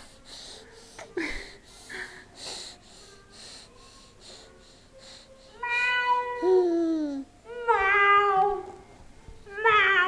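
A baby's quick breathy huffs, then three loud, high-pitched squeals in the second half, each falling in pitch.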